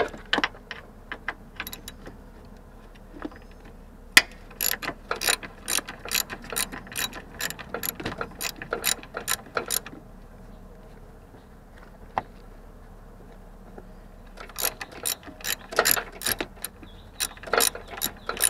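Socket ratchet clicking in quick runs as a bolt on the inverter water pump is turned. The clicking runs for several seconds, pauses for about four seconds, then starts again.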